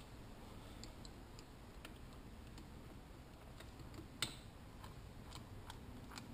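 Faint, scattered metallic clicks and taps of a small spanner working the reed block bolts on a Yamaha YZ125 two-stroke engine, at an uneven pace, with one louder click about four seconds in.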